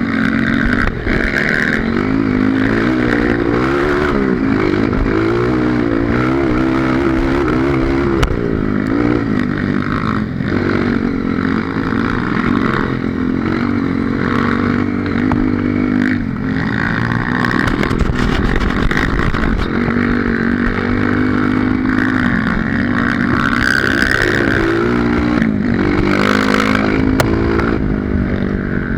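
Dirt bike engine running hard along a trail, its revs rising and falling constantly as the throttle is worked.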